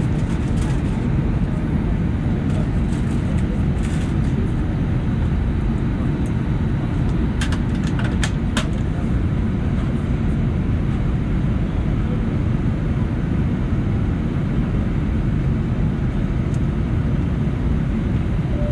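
Steady low rumble inside the cabin of an Airbus A319-111 taxiing, from its CFM56 engines at idle and the airframe rolling. A few light clicks come near the middle.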